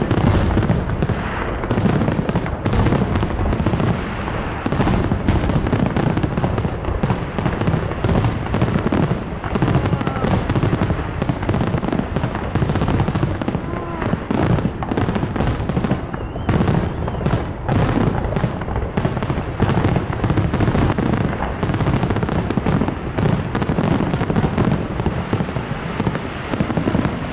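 Fireworks display: aerial shells bursting in a dense, unbroken barrage of bangs, many each second, like a cannonade.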